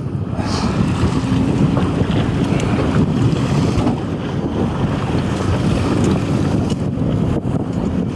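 Wind buffeting the microphone and sea wash against a boat hull, over a steady low engine hum.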